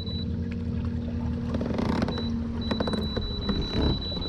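Electric bow-mounted trolling motor of a fishing kayak running with a steady whine, which stops about three seconds in. A few clicks and knocks of handling follow near the end.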